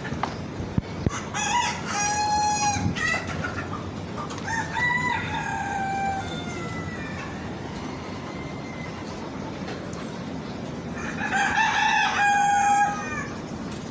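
Roosters crowing, three long crows: about a second and a half in, about four and a half seconds in, and again near the end.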